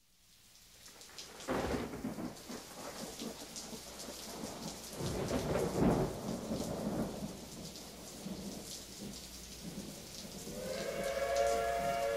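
Steady rain with thunder rumbling, the strongest rolls about a second and a half in and again around five to six seconds in. Near the end, steady held tones come in over the rain.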